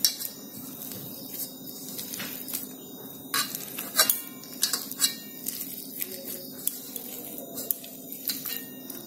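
Boiled potatoes being mashed by hand in a bowl, with irregular light clicks and knocks against the bowl.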